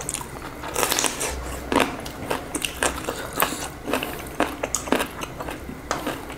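Close-miked eating: crunchy bites and chewing of food, a run of irregular crisp clicks.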